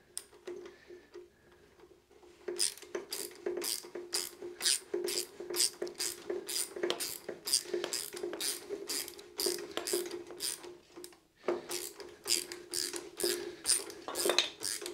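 Hand socket ratchet clicking in an even rhythm, about three clicks a second, as it turns a bolt on the side of a reel mower's cutting unit. It starts about two and a half seconds in and pauses briefly just after eleven seconds.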